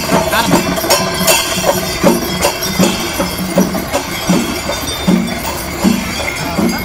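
Traditional Kerala festival percussion: drums beating about twice a second, with small hand cymbals clinking over them.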